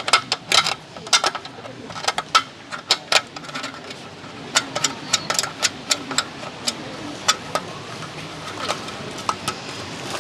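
Irregular sharp clicks and clattering knocks of hard objects being handled, over a steady low background hum.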